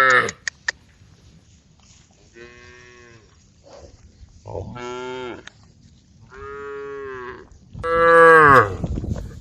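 Cows mooing: four long moos, about a second each, one after another, the last the loudest. The end of another moo is heard right at the start.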